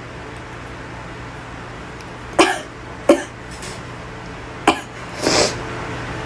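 A woman's short, sharp sneezes in a fit, set off by pollen: three quick ones a little over two to under five seconds in, a longer breathy burst after them, and another sneeze right at the end.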